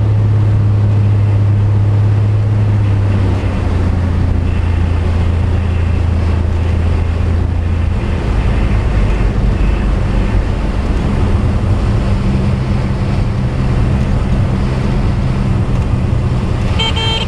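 Piston engine and propeller of a single-engine light aircraft, heard inside the cockpit during a landing: a steady low drone that drops in pitch about three seconds in and again near eight seconds as power comes off, then a lower, rougher rumble through the touchdown and rollout. A high tone starts just before the end.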